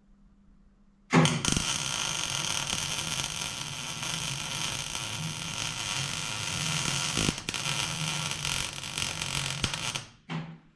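Welding arc on sheet steel: a loud steady crackling noise that starts abruptly about a second in, breaks off for a moment, stops suddenly near the end, then comes back for one short burst.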